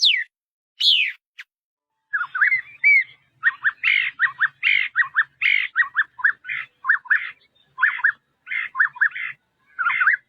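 Paddyfield pipit calling: a couple of sharply falling call notes, then about two seconds in a quick, steady run of short chirping notes.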